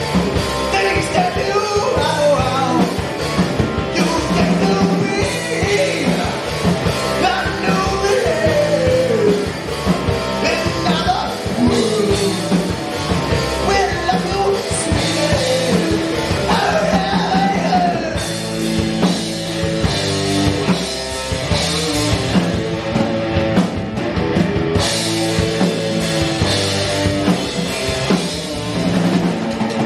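Live rock band playing loud: electric guitar, bass guitar and drum kit, with a wavering melody line over the chords in the first half.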